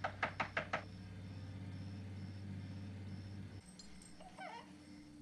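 Five quick knocks on a door, close together in the first second, over a low steady hum that cuts off about three and a half seconds in. A faint short sound follows near the end.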